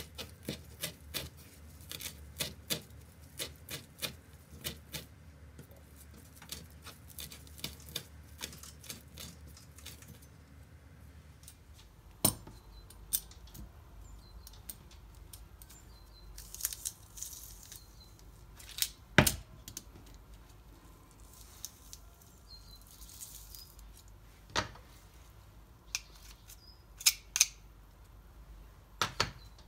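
A knife chopping parsley on a wooden cutting board, a quick, even run of knocks for about ten seconds. After that come scattered knocks and clicks from a metal garlic press crushing garlic cloves and a knife scraping the board, with one sharp knock louder than the rest about halfway.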